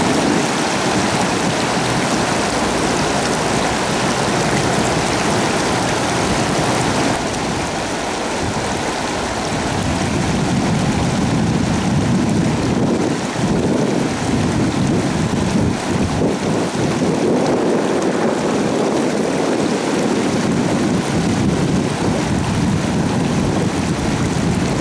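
River water rushing steadily through a riffle, a loud, continuous noise without a break.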